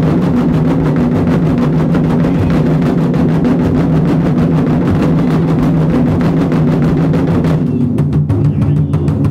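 Japanese taiko drums played continuously in rapid, even strokes. About three-quarters of the way through, the sharper, higher strikes fall away and the deeper drums play on.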